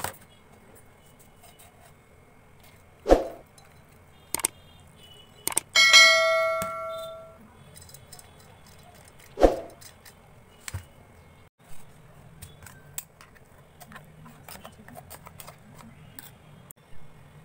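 Several sharp knocks and taps, with one bright bell-like metallic ding just before the middle that rings out and fades over about a second and a half. Light scattered clicks follow.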